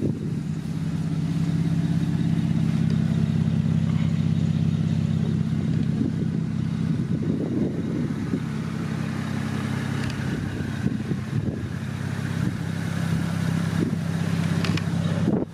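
BMW 3 Series sedan's engine idling steadily.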